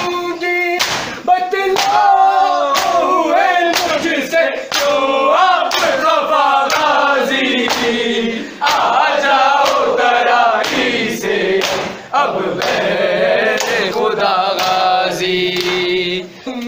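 A crowd of men chanting a noha, a Shia lament, in chorus. Sharp hand slaps of matam chest-beating keep the beat, roughly one a second.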